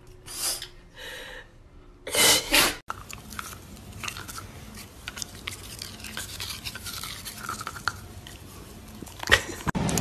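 Short breathy bursts from a French bulldog, the loudest about two seconds in. Then a dachshund gnaws on a plastic toothbrush: a long run of small clicks and scrapes of teeth on the brush.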